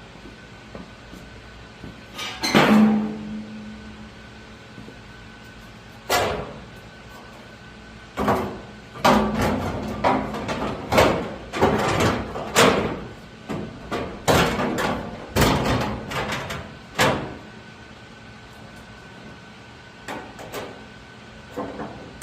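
Irregular metal bangs and knocks, as of hammering on sheet-metal body panels, some ringing briefly. A few strikes come singly early on, then a dense run follows through the middle.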